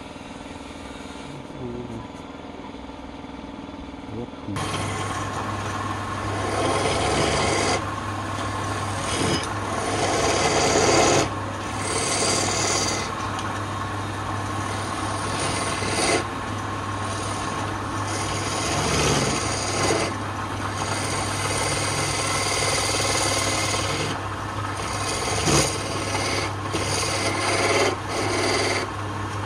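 Wood lathe turning a wooden spindle while a hand-held turning chisel cuts it, a dense rasping scrape over a steady motor hum. The scraping starts suddenly about four and a half seconds in and swells and eases with each pass of the tool.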